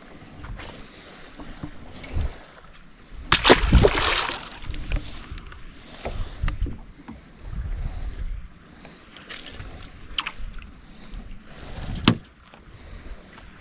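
Irregular knocks, bumps and rustling of handling aboard a small fishing boat, over a low rumble. A loud rush of noise comes about three and a half seconds in, and there is a sharp knock near the end.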